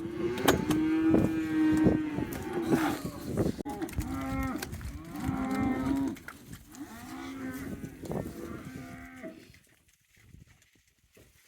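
Cattle mooing: several long, overlapping calls one after another, with a few sharp knocks among them, dying away about nine seconds in.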